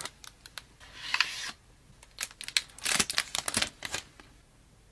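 Plastic shrink-wrap being peeled off a cardboard phone-case box, with a short tearing hiss about a second in. Then comes a quick run of crinkles and clicks as the box is opened and the silicone case is taken out.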